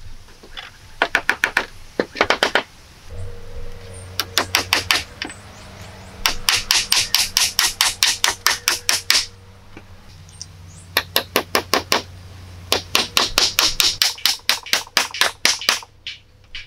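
A hammer striking thin wooden poles as they are fixed to a log frame. It comes in about five quick runs of sharp taps, roughly five or six a second, with short pauses between them.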